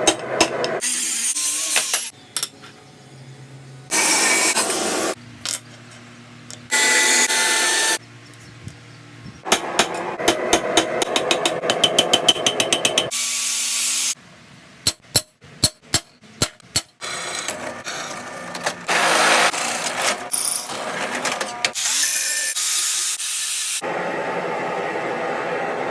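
Quick-cut sequence of metalworking sounds: runs of sharp hammer blows on steel alternate with stretches of steady, hissing power grinding or sanding as the steel sword blade is forged and shaped.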